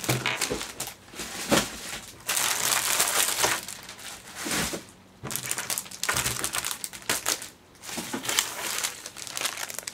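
Clear plastic bags crinkling and rustling as they are handled and moved, in irregular bouts with short pauses between.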